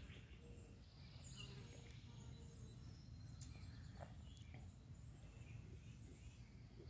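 Faint birdsong: scattered high chirps and short whistled notes from songbirds, over a steady low background rumble.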